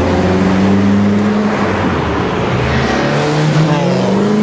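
Sports car engines accelerating past: a steady engine note for the first couple of seconds, then a second engine rising in pitch as it speeds up.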